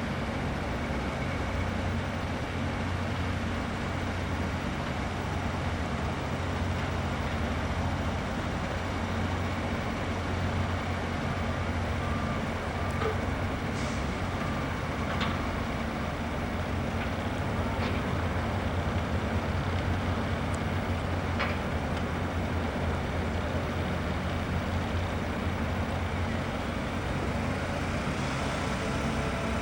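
Heavy diesel machinery running steadily through a concrete pour, a constant low engine drone, with a few faint clicks and knocks now and then.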